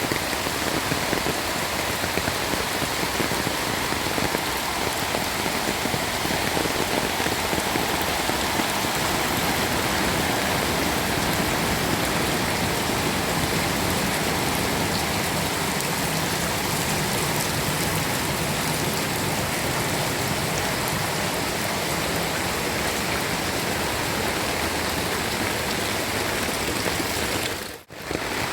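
Steady rain falling on surfaces, an even hiss with no let-up; it cuts out briefly just before the end.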